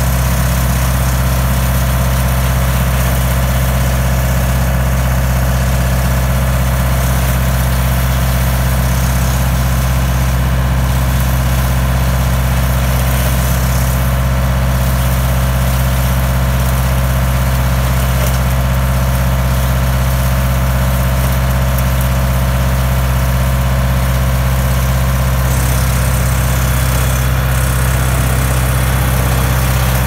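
Deutz Agroplus 70 tractor running at steady PTO speed, driving a Victory 6-inch wood chipper that is chipping branches and blowing the chips out of its chute. A loud, even drone with no let-up.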